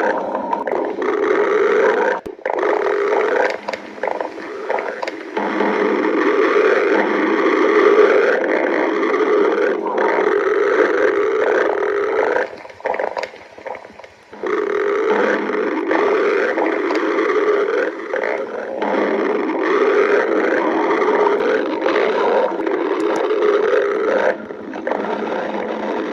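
A woman's stomach growling: long, loud gurgling rumbles that run on almost without a break, easing off for about two seconds around the middle.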